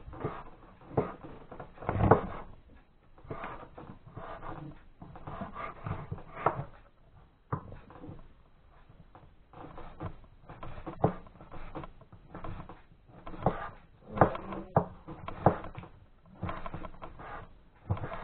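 A kitchen knife cutting boiled chicken gizzards on a wooden cutting board: irregular knocks of the blade on the wood, one to three a second, with soft handling noise between them.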